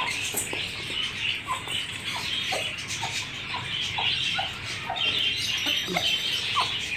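Chickens clucking in short separate notes, about two a second, over a steady high peeping of chicks.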